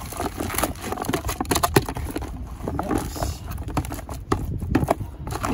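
Bait being mixed by hand in a bucket: krill boilies and pellets wet with krill liquid, stirred with an irregular run of rattling, clicking and squelching.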